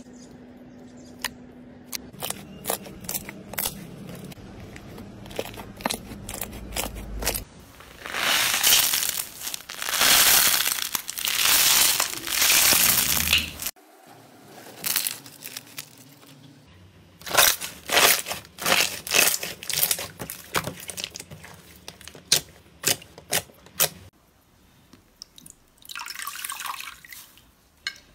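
Slime worked by hand: a run of sharp sticky clicks and pops, with a few seconds of loud, continuous wet squishing in the middle. After a sudden change, jelly slime pressed through a wire mesh gives more rapid clicks and pops, and a softer wet squelch comes near the end.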